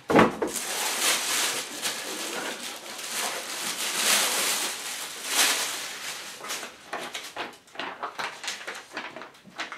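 Large plastic bag crinkling and rustling as the binoculars' carrying case is pulled out of it. In the last few seconds, the paper sheets of the manual are handled, with short crackly rustles.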